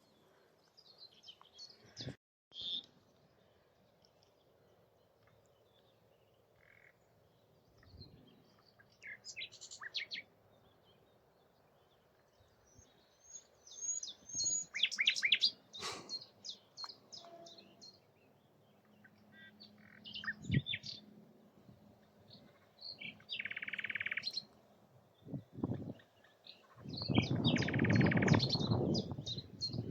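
Common nightingale singing in separate phrases of varied, fast repeated notes, with pauses between them. Near the end, a loud noisy burst lasting a few seconds partly covers the song.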